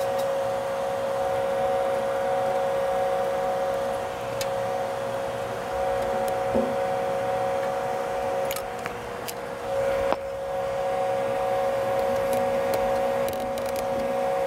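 Steady machine hum with two constant tones, over which come a few small sharp metallic clicks and taps as screws are driven into the clamp of a bullet piercing valve on a copper suction line.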